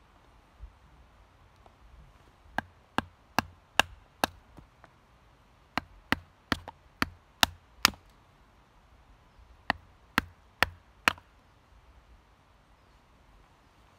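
Anglo Arms 7-inch laced knife chopping into a green wooden stick, trimming branch stubs off a spear shaft. About fifteen sharp blows come in three quick runs of a few strikes each, two to three a second.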